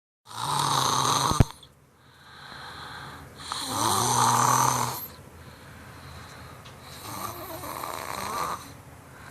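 A person snoring in deep, exhausted sleep: three loud snores a few seconds apart, with softer breathing between them. A sharp click sounds near the end of the first snore.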